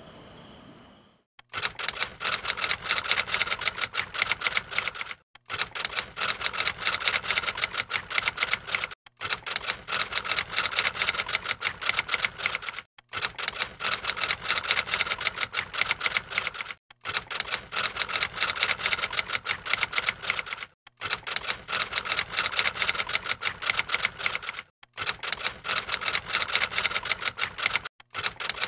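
Typewriter typing sound effect: keys clacking rapidly in runs of about four seconds, each run broken by a brief pause, as text is typed out letter by letter.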